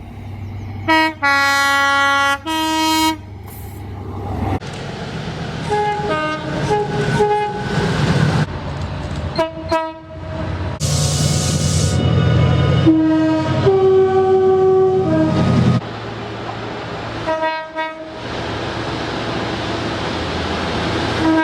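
Train horns sounding in a series of blasts, short and long, some with several notes sounding at once, over the running noise of a moving train. The sound changes abruptly several times, as separate recordings follow one another.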